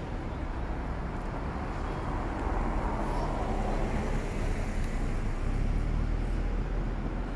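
Road traffic: a steady rumble of passing cars, growing louder from a few seconds in as a car drives by close.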